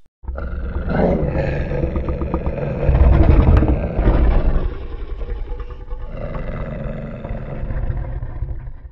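Giant monster roar sound effect: a long, deep creature roar, loudest from about three to four and a half seconds in, then going on more softly.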